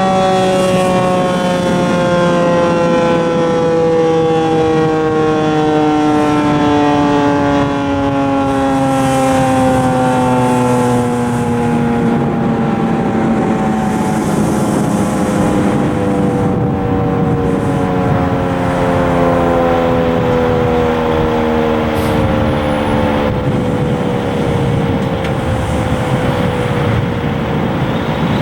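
Federal Signal 2001-130 rotating dual-tone electromechanical warning siren sounding a chord of several tones whose pitch falls slowly and steadily throughout, as the rotor winds down.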